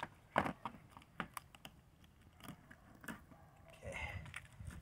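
Irregular small cracks and clicks of a flathead catfish's bones and gristle breaking as the carcass is snapped and pulled apart by hand, the sharpest crack less than half a second in. A dull low handling noise comes near the end.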